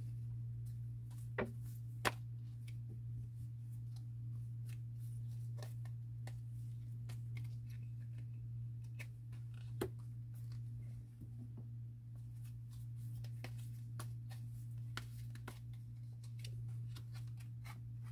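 Tarot and oracle cards being handled, shuffled and laid down on a cloth: many light clicks and riffles of card stock, with a few louder taps, over a steady low hum.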